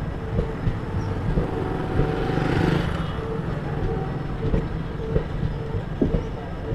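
Blue Indian Railways sleeper coaches rolling past: a steady low rumble of wheels on the track with irregular clacks and knocks, and a rush of noise that swells about two and a half seconds in.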